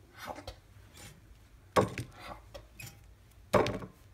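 Toasted Eggo waffles clacking down onto a ceramic plate: two sharp knocks, about two seconds in and again near the end, with fainter clicks of handling between.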